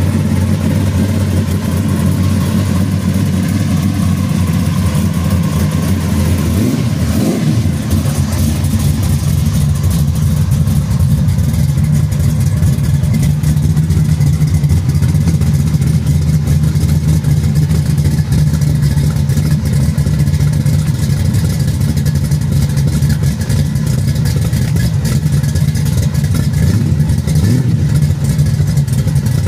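Chevrolet Nova SS V8 running at low speed and idle, a steady deep engine rumble, with a short rise in engine pitch about seven seconds in as the throttle is blipped.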